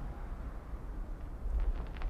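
Low rumbling, bumping noise from a microphone mounted directly on the camera tripod, under the fading sparks of a firework burst; a spatter of faint crackling clicks starts about three-quarters of the way in.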